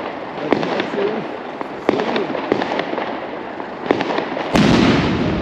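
Firecrackers going off: scattered sharp bangs, then a much louder blast about four and a half seconds in that leaves a heavy rumble.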